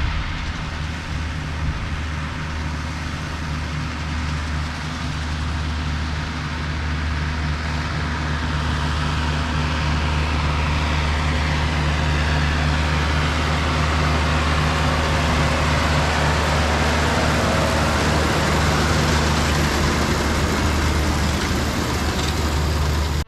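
Farm tractor engine running steadily under load while pulling a working round baler, with a rushing mechanical noise from the machinery that grows louder partway through.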